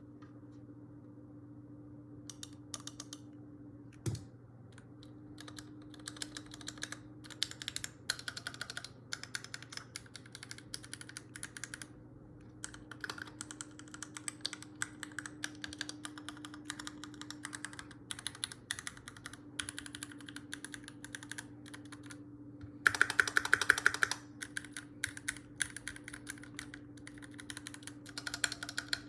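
Typing on a Keychron Q2 aluminium mechanical keyboard with Gateron Pro Red linear switches and double-shot keycaps: irregular keystrokes with a faint steady hum underneath. About 23 seconds in there is a fast, louder flurry of keypresses lasting about a second.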